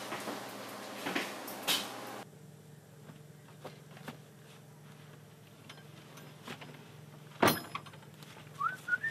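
Door and handling sounds: rustling and light knocks, then quieter with a steady low hum and faint ticks. A single sharp knock comes about seven and a half seconds in, and short rising squeaks follow near the end.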